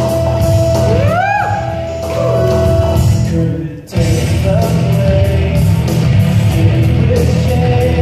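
Karaoke rock backing track played over hall speakers with a man singing along into a microphone: a long held note with swooping rises about a second in. The music drops out briefly just before four seconds in, then comes back.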